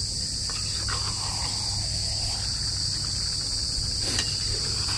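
Steady, high-pitched chorus of insects, with a few light scrapes of a metal spatula against the clay kadhai as the chicken masala is stirred.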